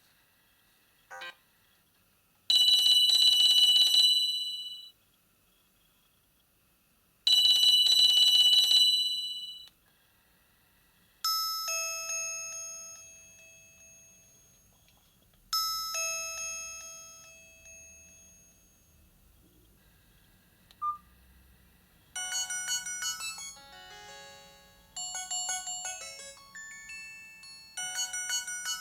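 Nokia 5310 XpressMusic (2020) playing a run of its ringtones and alert tones through its loudspeaker. First a short beep, then two loud, steady tones of about two seconds each, then two chimes that fade away. A quick blip follows, and then a melodic ringtone that runs through the last part.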